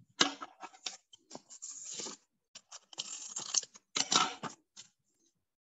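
Pink chart paper rustling and scraping as the cut paper pieces and strip are handled and slid about on a board, in irregular short bursts that stop near the end.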